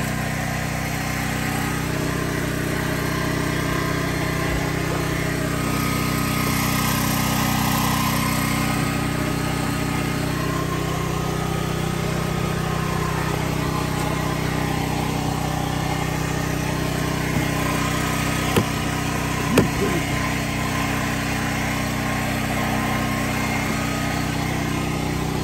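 An engine running steadily at constant speed, a continuous even drone. Two short clicks about a second apart come about three quarters of the way in.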